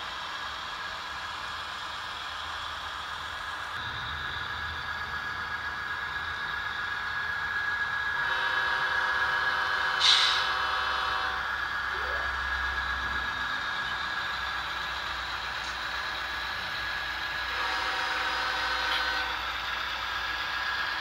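HO-scale model diesel locomotives working hard up a 1.8% spiral grade with a long, heavy train, near their limit of adhesion. A steady running whine carries throughout, with a chord of tones coming in twice and a brief sharp hiss about ten seconds in.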